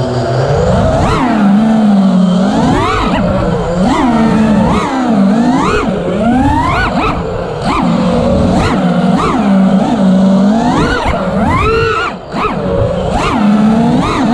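Armattan Rooster FPV quadcopter's brushless motors and propellers whining, the pitch sweeping sharply up and down about once a second as the throttle is punched and eased during freestyle flying, heard from the onboard camera. The sound drops briefly about twelve seconds in.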